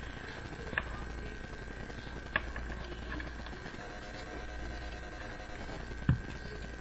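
Handling of a homemade paper booster pack of Pokémon cards: a few soft clicks and one louder thump about six seconds in, over a steady faint hum and a thin high whine.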